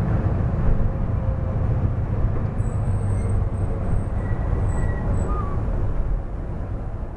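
Vehicle driving across a steel-decked suspension bridge: a steady low rumble that starts to fade near the end, with a few faint high chirps about halfway through.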